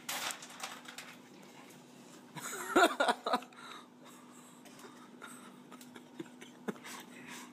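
A young man's wordless pained cry, about a second long, a few seconds in, from a mouth burning after eating a very hot jalapeno. Before it there is a short rustle, and after it only faint small sounds while he drinks milk from a glass.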